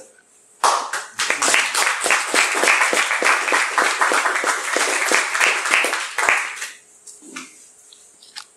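Audience applauding, a dense clatter of many hands clapping that starts about half a second in and dies away after about six seconds, leaving a few stray claps near the end.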